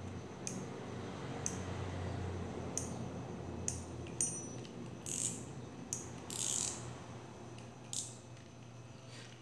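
Metal spinning fishing reel being handled and worked by hand: light metallic clicks and ticks about once a second, one with a short ring, and two brief rasping whirs a little past the middle.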